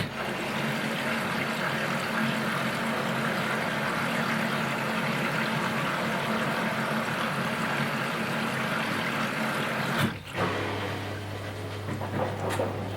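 Washing machine taking in water: the inlet valve opens suddenly and water rushes steadily into the machine for about ten seconds, then stops. A low hum and a few knocks follow near the end.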